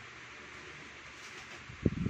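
Faint steady background hiss, then a sudden burst of low thumps near the end.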